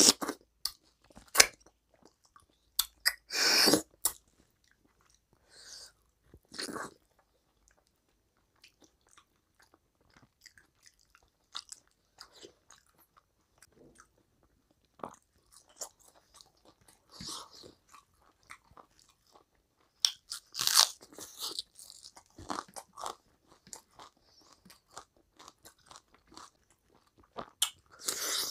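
Close-miked eating sounds: wet chewing and mouth noises as rice and mutton curry are eaten by hand. They come in short bursts, louder about three seconds in and again about twenty seconds in, with quieter stretches of faint clicks between.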